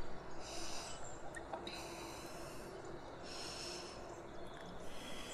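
A woman breathing slowly in and out, about four breaths in a row.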